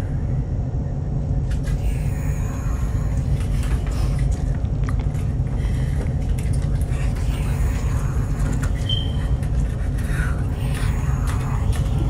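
Steady low rumbling drone of a horror film's sound design, with a few faint clicks scattered through it.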